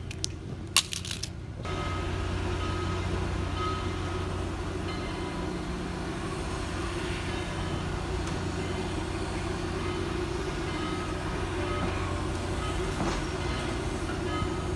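A couple of sharp clicks, then, about two seconds in, the steady low rumble of a train starts abruptly and runs on evenly.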